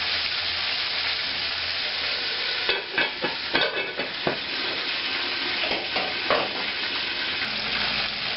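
Chicken pieces frying in hot oil: a steady sizzle, with sharper crackles and pops starting about three seconds in.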